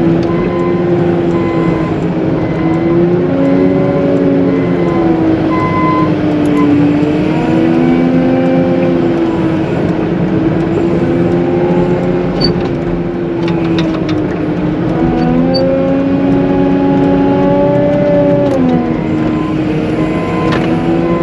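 Caterpillar 906M compact wheel loader's diesel engine working under load while plowing heavy slush. Its pitch rises and falls every few seconds as the revs change.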